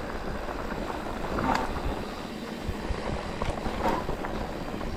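Mountain bike riding down a rocky trail: wind rushing over the microphone, with the rumble of tyres over rock and a few sharp knocks and rattles from the bike.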